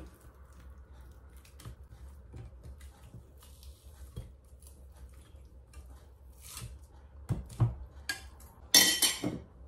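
Quiet handling as raw meat pieces are dropped by hand into a stainless-steel Thermomix bowl, with scattered soft clicks and a couple of dull thumps. Near the end a metal spoon scrapes and clinks loudly against the inside of the steel bowl.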